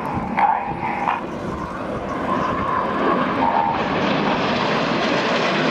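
Jet engine noise from a formation of BAE Hawk T1 jets with Adour turbofans flying past, a steady rushing sound that grows louder from about halfway through.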